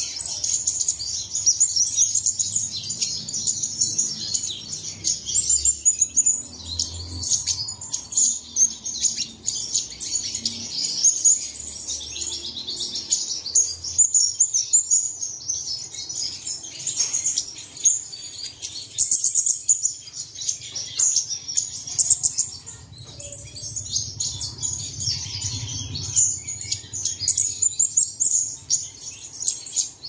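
Sunbird singing a long, rapid, high-pitched twittering song that runs on almost without pause.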